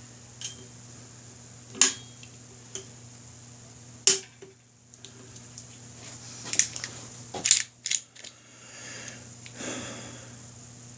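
Click-type torque wrench on motorcycle brake rotor bolts: a few sharp, separate metallic clicks with tool-handling noises as it is set and pulled, over a steady low hum.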